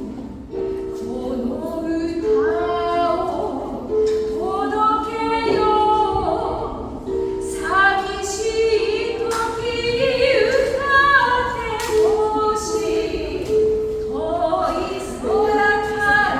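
Vocal music: singing with a flowing melody over long, steady low accompanying notes.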